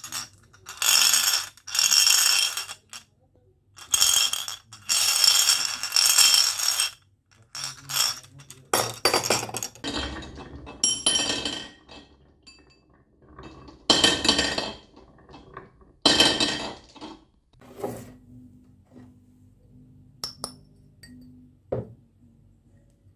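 Marbles rolling and clattering down a HABA wooden marble run, in about six separate runs of one to three seconds each with quieter gaps between.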